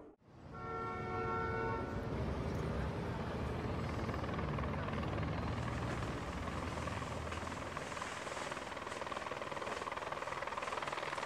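Helicopter running steadily, after a brief steady pitched tone in the first two seconds.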